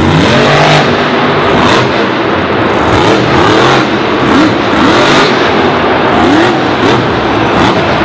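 Dragon monster truck's supercharged V8 engine revving hard again and again, its pitch rising and falling.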